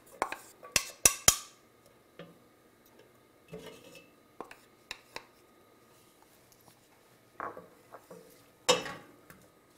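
Wooden spatula knocking chopped onion out of a small bowl into a stainless steel frying pan: a quick run of sharp clinks and taps in the first second or so, then scattered lighter taps and scrapes as the onion is stirred, with one louder knock near the end.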